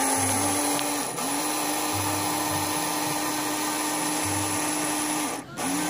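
Small battery-powered electric motor mechanism taken from a toy excavator, whirring steadily as it drives the geocache box's lid closed on 9 volts. It cuts out briefly about a second in and again near the end, running a touch higher after the first break.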